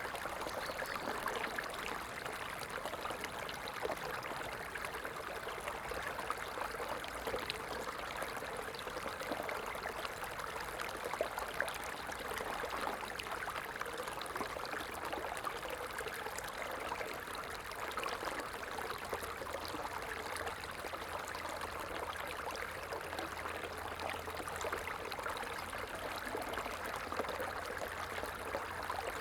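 Running water: a small stream or trickle flowing steadily, a continuous babbling splash.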